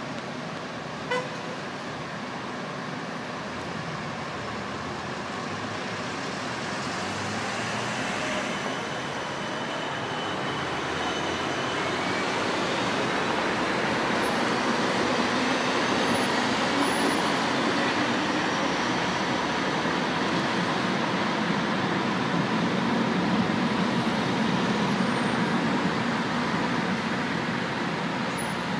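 Street traffic noise on a city boulevard: a Siemens Combino tram rolls past below while car traffic builds, growing louder from about a third of the way in and staying steady. A short horn toot sounds about a second in.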